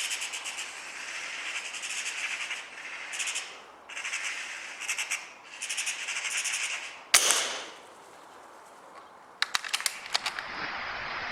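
A single sharp air rifle shot about seven seconds in, after several bursts of a fast rattling clatter. A quick cluster of clicks follows a couple of seconds later.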